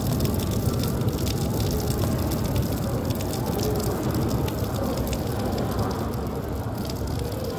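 Rain falling on stone paving: a steady rushing noise with many small crackling drips.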